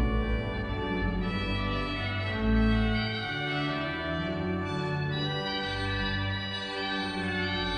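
Organ music: sustained chords over deep held bass notes that change every second or so.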